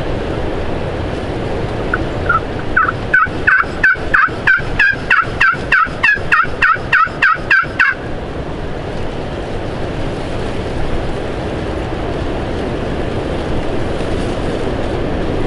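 A long series of turkey yelps, about three a second, starting soft and growing louder, lasting some six seconds over steady wind noise.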